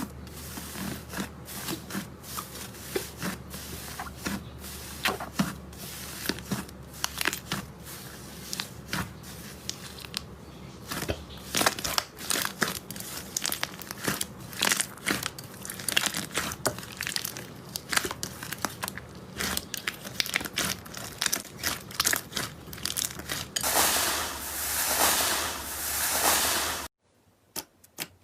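Slime being squished and poked by hand: a steady stream of small crackling pops and sticky clicks. Near the end comes a louder, denser stretch of crinkly noise. It then cuts off suddenly to a few sparse, sharper clicks.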